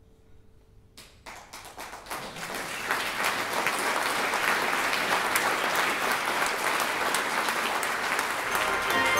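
Audience applauding: clapping breaks out about a second in and swells within a couple of seconds into steady applause from a full hall.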